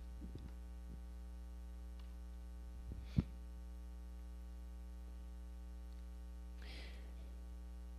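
Steady electrical mains hum on the audio line, with one sharp knock about three seconds in and a faint papery rustle near seven seconds as Bible pages are turned.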